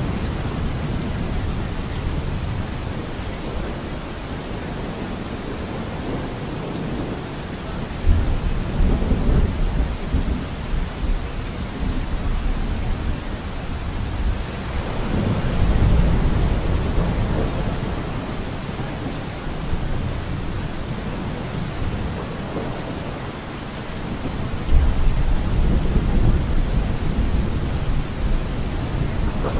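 Steady rain falling, with rolling thunder: deep rumbles swell up about eight seconds in, again around the middle, and once more near the end.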